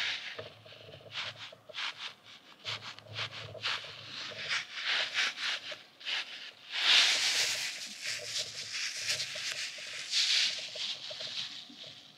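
Soft yellow duck-shaped squishy squeeze toy being squeezed and stretched by hand. Quick little squelching crackles come first, then from about seven seconds in a denser, louder rubbery squishing.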